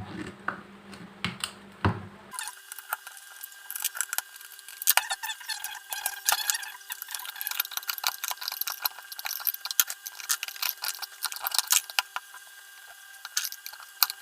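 Irregular small metallic clicks and clinks as a ceiling fan is taken apart by hand: screws being undone and the metal casing parts handled.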